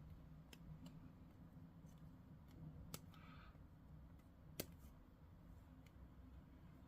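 Near silence with a few faint, sharp clicks, two of them clearer about three seconds and four and a half seconds in, from small plastic model-kit parts being handled and worked at a hobby bench.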